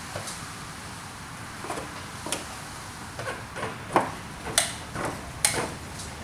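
Irregular metal clicks and light knocks of hand work on a T56 transmission being fitted into place under the car. The sharpest knocks fall about four, four and a half, and five and a half seconds in.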